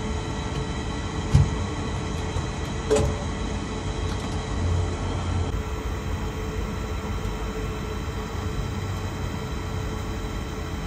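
Tower crane machinery running steadily, a low rumble with several fixed whining tones. Two short knocks come about one and a half and three seconds in.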